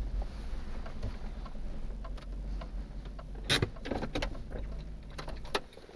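Low engine and road rumble heard from inside a car's cabin as it creeps over snow, with scattered crackles and clicks of the tyres crunching the snow, the loudest about halfway through. The rumble drops away near the end as the car slows to a stop.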